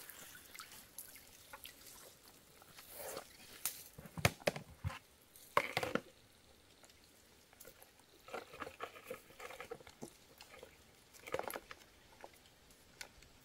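Quiet water dripping and splashing from a wet mesh fish trap as it is shaken out over a plastic bucket, with irregular small knocks and rustles of the net and its frame.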